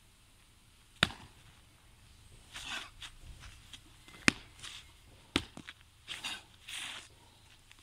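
Tai chi practitioner's feet stamping hard on packed dirt: three sharp slaps, the loudest as he lands from a jump about four seconds in. Short swishes of clothing and shoes scuffing come between them.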